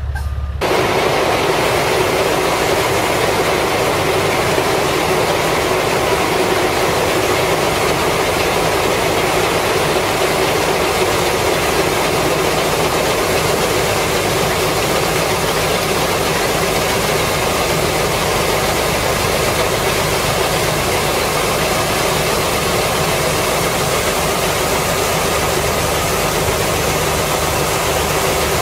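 Tractor-driven grain auger running steadily as grain pours from a tipping truck box into its hopper: a dense, even machine noise that comes in sharply about half a second in.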